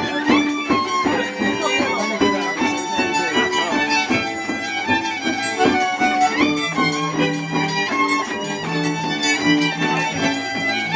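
Traditional folk dance band playing a tune led by fiddle, with a steady beat; lower notes join in about six and a half seconds in.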